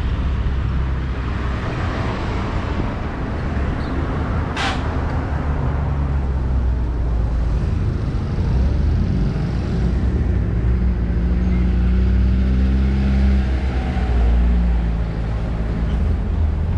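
Street traffic with motor vehicle engines running close by, one engine note climbing and growing louder around the middle. A short, sharp hiss comes about four and a half seconds in.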